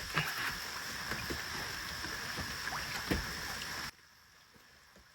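Steady rain with scattered drop taps, cutting off suddenly about four seconds in to near silence.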